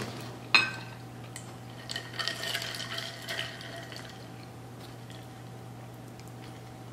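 A glass clinks sharply about half a second in, then ice cubes clink and rattle in a glass of iced drink for a second or so, from about two seconds in.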